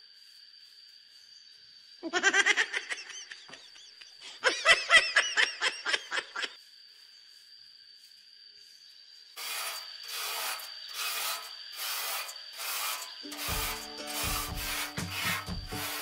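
A gloved hand scraping and rubbing through loose soil: two short flurries of rough strokes, then steady rubbing strokes about two a second. Background music with low sustained notes comes in near the end.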